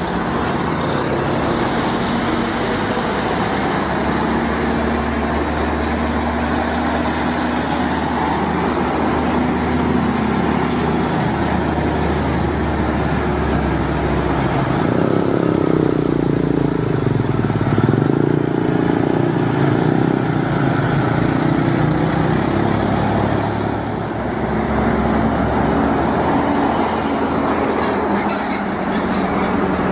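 Heavy diesel trucks pulling long trailers run past at close range, a steady low engine note over tyre and road noise. It swells louder about halfway through and again near the end as trucks pass close by.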